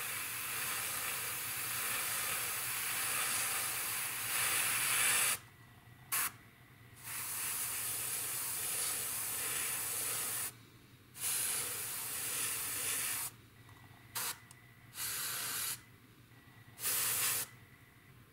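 Airbrush spraying metallic paint in repeated bursts of hiss: one long pass of about five seconds, then about six shorter ones, some under a second, stopping and starting.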